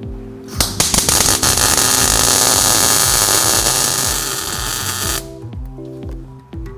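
MIG welder crackling and hissing while plug-welding a sleeve into a Dana 44 axle housing tube. It starts about half a second in and cuts off suddenly about five seconds in. Background music with a steady beat runs underneath.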